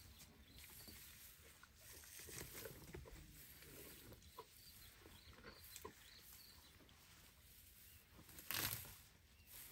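Faint rustling and crackling of dry grass and thorn-bush twigs as an African elephant pulls at vegetation with her trunk to feed, with scattered small snaps and one louder rustle about eight and a half seconds in.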